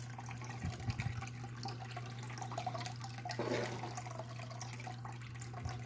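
Water running and trickling steadily as classified gravel is run through a small prospecting setup, with a steady low hum underneath.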